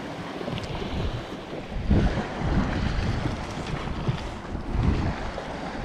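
Wind buffeting the microphone over lapping sea water, with strong low gusts about two seconds in and again near five seconds.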